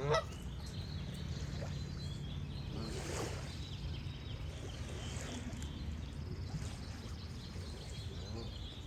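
A goose honks once, loudly, right at the start, then calls again more softly about three seconds in. Small birds chirp high and thin throughout over a steady low background rumble.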